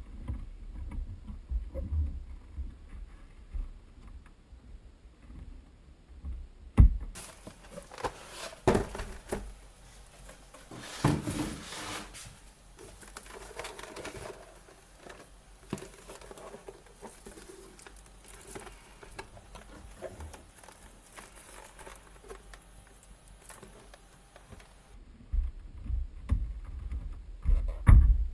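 Packaging being handled while a keyboard is unboxed: a long stretch of crinkling and rustling with a few knocks, and low handling thumps near the start and near the end.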